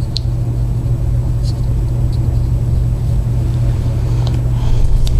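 A steady low hum throughout, with a few light clicks from small parts being handled, such as heat-shrink tubing being slid over a soldered wire joint.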